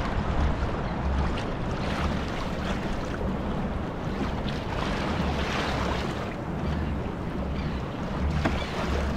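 Rough ocean waves washing and splashing around a kayak, with wind rumbling on the microphone.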